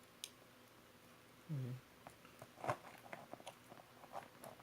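Light, irregular clicks and taps of small plastic parts being handled while an RC receiver's leads are plugged in, with a short hum from a man's voice about a second and a half in.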